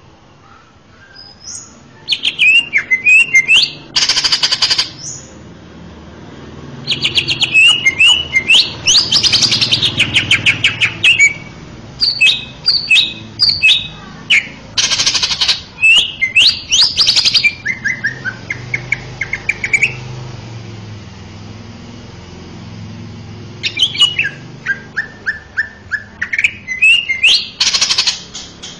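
Male cucak ijo (greater green leafbird) singing loud, varied phrases of quick chirps and sweeping whistles mixed with short buzzy notes. It falls silent for a few seconds past the middle, then starts again.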